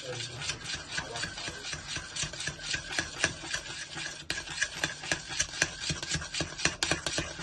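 Metal spoon scraping round the bottom and sides of a stainless steel saucepan, stirring a thick cheese sauce in rapid strokes about four a second.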